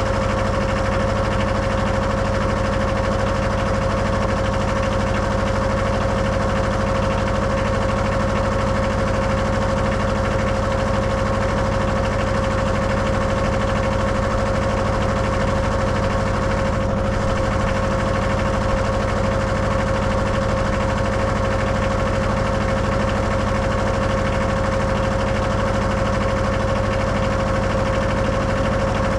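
Wood-Mizer LT15 sawmill's Kohler 17 hp diesel engine running steadily, with a constant whine over the low engine rumble.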